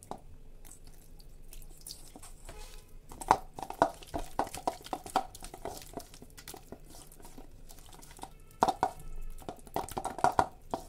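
A hand squishing and stirring thick gram-flour (besan) batter in a stainless-steel bowl: irregular wet squelches and slaps with light knocks against the bowl, coming in two spells of quicker mixing.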